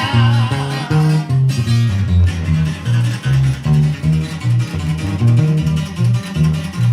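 Norteño corrido in guitar style played live: guitars and bass carry an instrumental break with a steady, bouncing bass line after the singer's last held note dies away in the first second or so.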